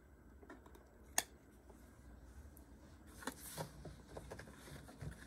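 Faint handling of trading cards and plastic card holders: a single sharp click about a second in, then a brief rustle with a few light taps about three seconds in.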